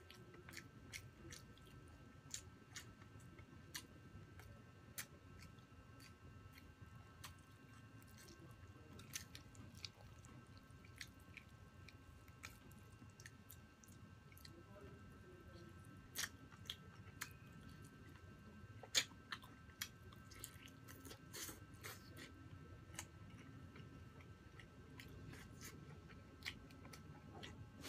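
Close-up chewing of roast chicken and rice: wet mouth clicks and smacks throughout, with a few sharper, louder snaps in the middle.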